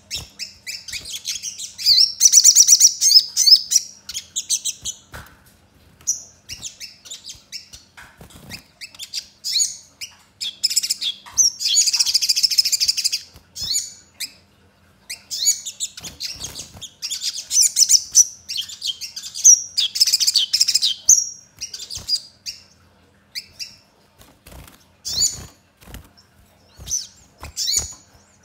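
Caged little spiderhunter (sogon) singing: high-pitched bursts of rapid chattering trills and sharp single notes with short pauses between, its song filled with mimicked tree sparrow chirps. A few soft knocks come near the end.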